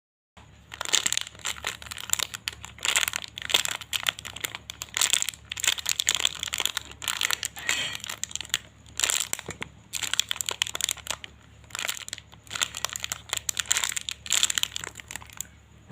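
Crinkling, rustling handling noise from a foam unicorn squishy toy being squeezed and turned over in the hands, in a run of short uneven rustles several times a second.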